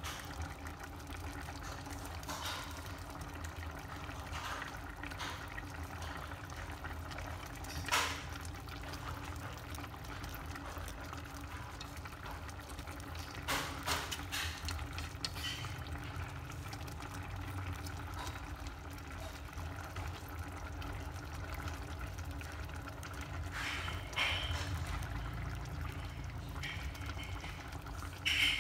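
A stainless-steel pot of tofu and minced-meat sauce simmering steadily, with wooden chopsticks clicking sharply against the pot a few times as the tofu is turned.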